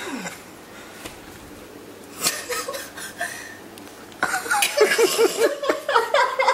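People laughing in quick, repeated bursts from about four seconds in, with a single knock about two seconds in.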